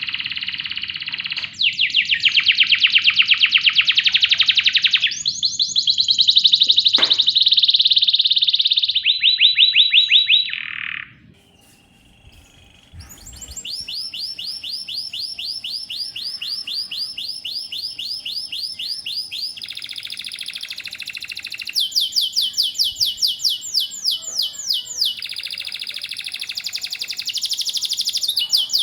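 Domestic canary singing a long song of rapid trills and rolls, moving to a new trill phrase every few seconds. The song breaks off for about two seconds roughly eleven seconds in.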